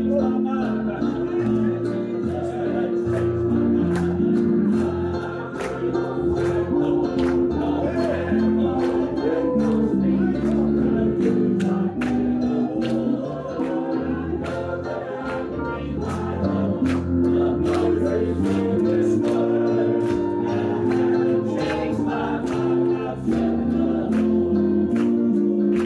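Gospel singing in a church: a man singing into a microphone with other voices joining in, over instrumental accompaniment, with sharp beats through the whole song.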